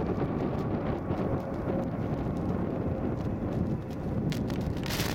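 Boeing 737-500 jet engines (CFM56-3 turbofans) running as the airliner moves along the airfield: a steady low rumble with a faint whine. A couple of short clicks come near the end.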